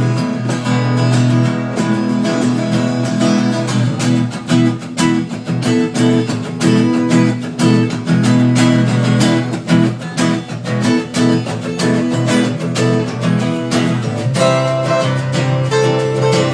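Acoustic guitar strumming steady chords in an instrumental break of a country song, with no vocals.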